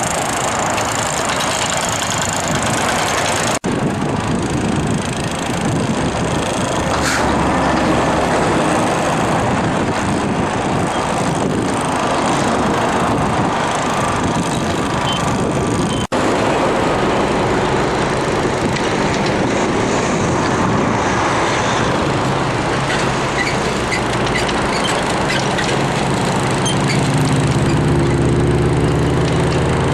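Steady, dense vehicle and road noise with crackly buffeting. It breaks off briefly twice, and a low engine hum grows stronger over the last several seconds.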